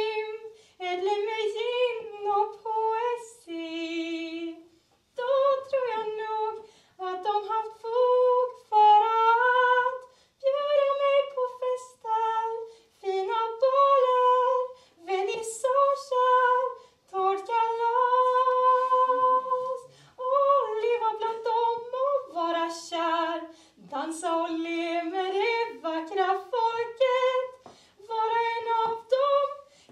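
A woman singing a solo stage song in phrases with short breaks between them, holding one long steady note about eighteen seconds in.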